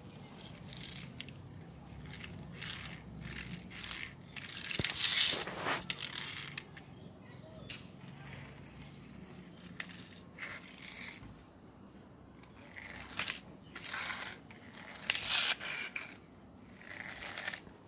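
Small plastic toy wheels rolling and scraping over rough concrete in repeated gritty bursts as the toy is pushed back and forth by hand, the longest and loudest about five seconds in and again near fifteen seconds.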